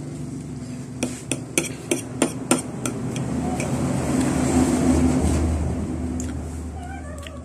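A metal fork clicks and scrapes against a plate about seven times in quick succession. After that, a low rumble swells and then fades.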